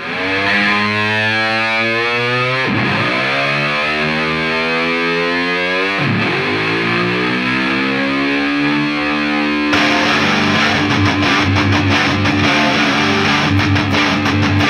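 Heavy rock background music: sustained distorted electric guitar chords with swooping pitch dives, then drums and the full band come in about ten seconds in.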